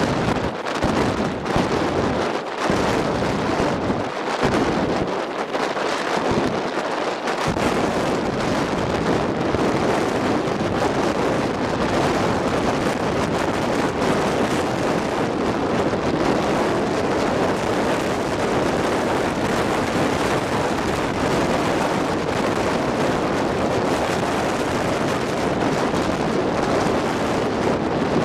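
Wind buffeting the microphone: a steady rushing noise whose low rumble drops in and out during the first several seconds, then holds steady.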